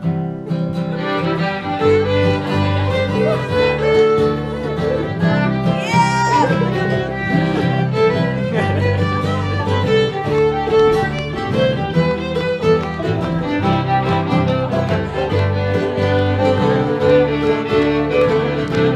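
Acoustic string band playing a bluegrass-style tune, with fiddle on top of banjo and acoustic guitars.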